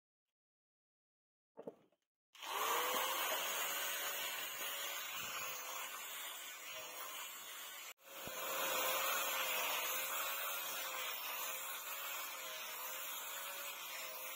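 Handheld angle grinder with a sanding disc running, sanding a wooden knife handle. It starts about two seconds in and runs steadily with a faintly wavering motor note as it is pressed into the wood, with a brief break about 8 s in.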